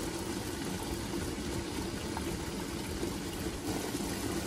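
Water boiling steadily in a stainless stovetop steamer pot beneath its perforated steaming tray.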